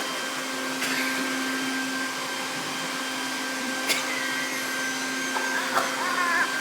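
Upright vacuum cleaner running steadily with a constant motor whine, and a couple of brief clicks about one and four seconds in.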